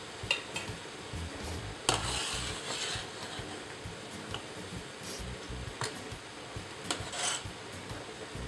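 Metal ladle clanking against a stainless steel pot and swishing through the water as potato gnocchi are stirred and scooped out once cooked. A few sharp clanks, the loudest about two seconds in, and two brief splashing swishes.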